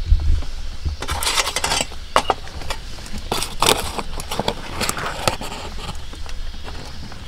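A spoon scraping and clicking against the plastic tray of a self-heating ramen-and-rice ration as the food is stirred: irregular scrapes and light clicks in a few bunches.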